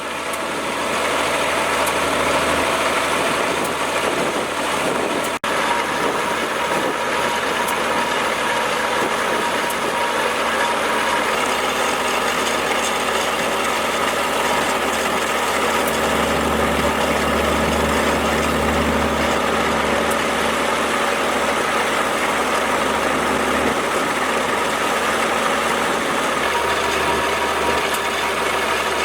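Mercedes diesel engine of a 1918 Fowler BB1 ploughing engine running steadily, its deep low rumble swelling briefly a little past the middle.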